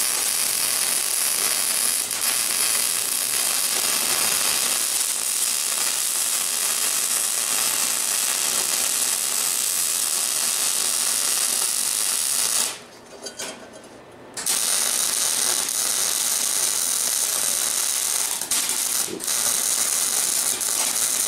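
Wire-feed MIG welder arc crackling steadily as it lays weld on steel. The arc stops for about a second and a half around the middle, then starts again for a second run.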